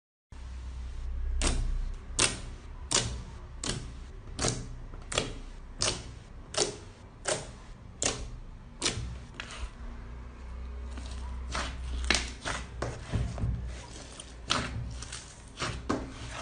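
Slime being pressed and worked by hand, letting out sharp popping clicks at a steady pace of about three every two seconds, over a low handling rumble.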